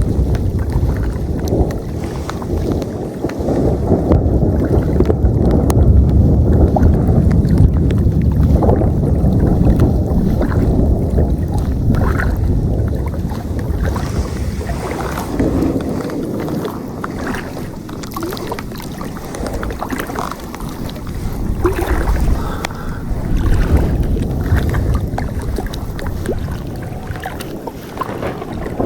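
Gusty storm wind blowing hard across the microphone, swelling and easing every few seconds, with water splashing and lapping underneath.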